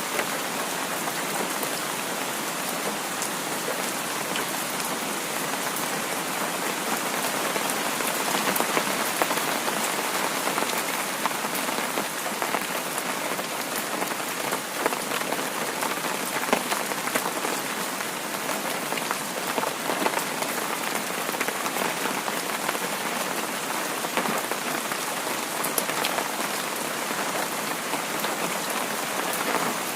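Heavy rain falling steadily, a dense even hiss with many small drop ticks.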